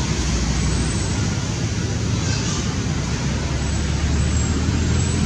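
Steady, loud outdoor background noise with a low rumble.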